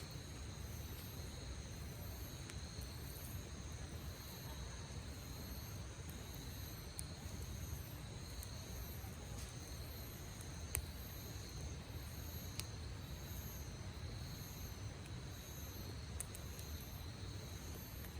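Campfire crackling, with scattered sharp pops over a low steady rumble of the burning fire, against high insects chirping steadily in the background.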